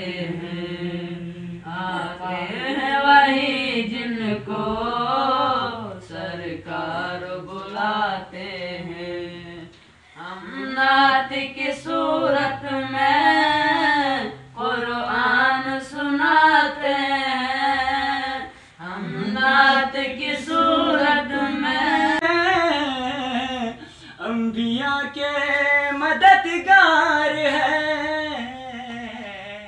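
A voice singing a naat, a devotional poem in praise of the Prophet, unaccompanied, in long ornamented phrases with short breaks between verses.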